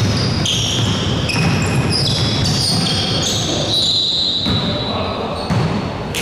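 Basketball game on an indoor court: the ball bouncing and sneakers squeaking in many short high chirps, over the general noise of the players and gym.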